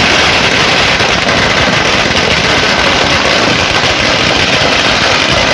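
Ground firecrackers burning on a street: a loud, continuous crackling hiss of sparks and small pops that holds steady throughout.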